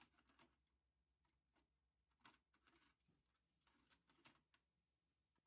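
Near silence with the sound track muted, leaving only a few very faint clicks.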